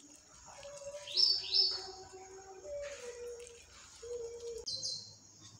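Birds chirping: two loud, quick rising chirps about a second in and a higher one near the end. Softer held notes shift in pitch underneath.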